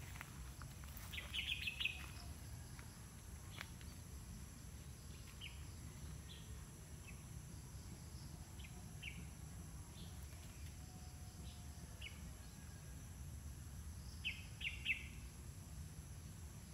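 Small birds chirping on and off: short high chirps, with a quick run of them about a second in and another near the end, over a low steady rumble.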